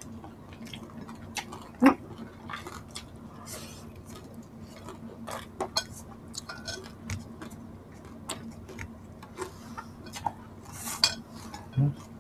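Eating at a table: scattered clicks, taps and knocks of dishes and cutlery, with the loudest knocks about two seconds in and near the end, over a faint steady hum.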